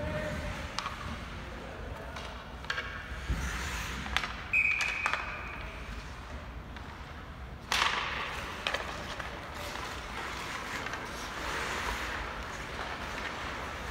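Hockey game play in a rink: scattered sharp clacks and knocks of sticks and puck over a steady haze of skating noise. There is a short high steady tone about four and a half seconds in, and a loud sudden hissing scrape a little before eight seconds in.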